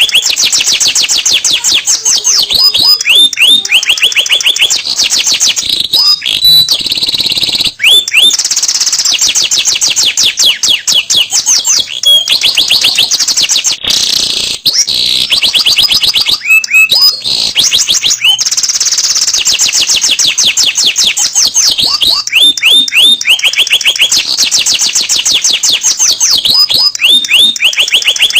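Domestic canary singing a long unbroken song of fast, high-pitched trills, switching from one rolling trill to another every second or two.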